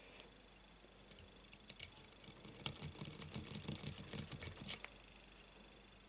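A metal pick wiggled in a lock cylinder's keyway: quick, irregular metallic clicking and scraping, a few scattered clicks at first, then a dense run for about two seconds that stops suddenly.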